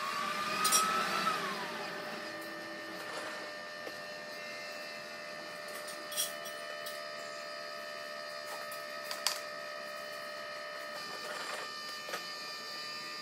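Coal forge's electric air blower running with a steady whine as the fire is brought up; its pitch rises and then drops back in the first second or so. A few light knocks and clinks over it.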